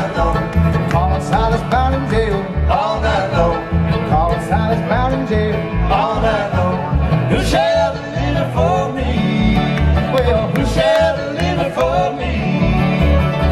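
Live bluegrass band playing through a stage PA: a flatpicked acoustic guitar and an upright bass thumping a steady beat about twice a second, with a sung vocal line over them.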